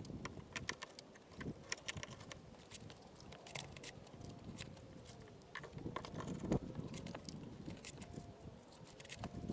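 Rapid, irregular clicks and taps, with a louder knock about six and a half seconds in.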